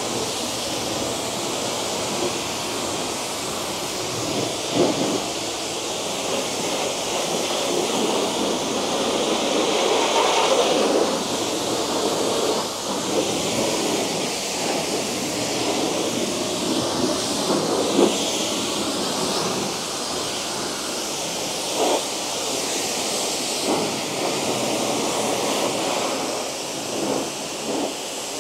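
High-pressure washer jet spraying water onto a mini excavator: a steady, loud hiss of spray that shifts in tone as the jet moves over the bodywork, tracks and cab. A few short louder spurts stand out along the way.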